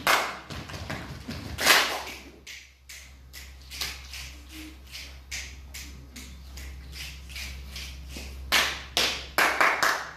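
A group of children clapping their hands in short, irregularly spaced claps, with a run of louder claps near the end.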